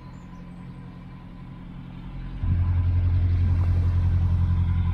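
Narrowboat diesel engine chugging steadily at low revs, growing clearly louder about two and a half seconds in.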